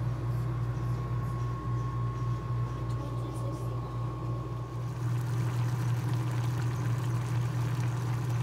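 Water boiling and bubbling in a pot of potatoes over a steady low hum. The sound shifts slightly about five seconds in.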